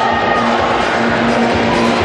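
Music playing loudly and steadily, with crowd noise beneath it.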